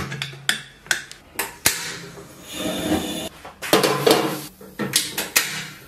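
Metal clicking and clanking as the lid of a large aluminium pressure cooker is fitted and locked, then the knocks of a steel wok being handled on a gas hob. The knocks come singly and in quick clusters, with a short rougher scraping stretch near the middle.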